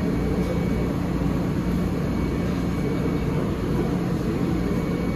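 New York City subway train at the platform: a steady low hum with several steady tones, unchanging throughout.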